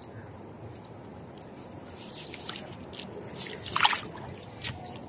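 Shallow water splashing and dripping as a snakehead is let go from the hand at the water's edge. The loudest splash comes about four seconds in, as the fish darts away.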